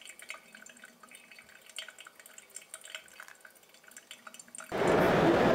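Faint scattered drips and ticks, then near the end a loud, steady hubbub of voices and room noise cuts in abruptly.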